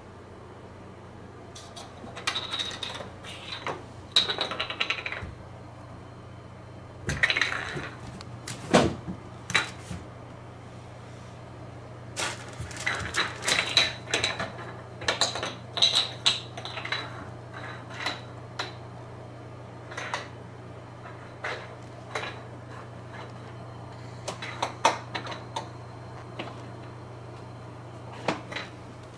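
A small light cap being batted about by a cat, clicking and clattering across wooden floorboards in irregular bursts, with a steady low hum underneath.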